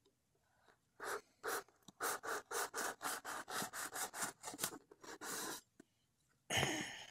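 Kitchen knife blade sawing and scraping along the taped seam of a small cardboard box: a run of short rasping strokes, about four a second, ending with one longer stroke, then a louder scuff of the cardboard being handled near the end.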